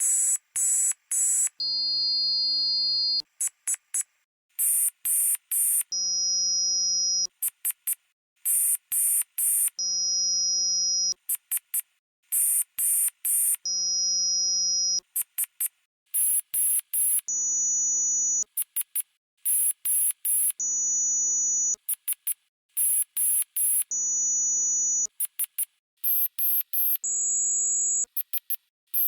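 American Emergency Alert System tones played sped up several times over, so everything is shrill and quick. Each cycle of about four seconds has a few quick chirping data bursts, then a steady two-tone attention beep about a second long, then a few more chirps. The pitch steps higher every few cycles as the playback speed rises.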